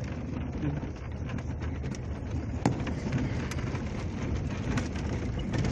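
Pickup truck driving on a dirt road, heard from inside the cab: a steady low rumble of engine and tyres with scattered small clicks and rattles, one sharper click about halfway through.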